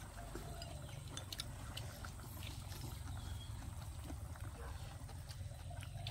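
Hotpot broth simmering in a steel pot on a portable gas stove, with a few light clicks of chopsticks and ladle against the pot over a steady low rumble.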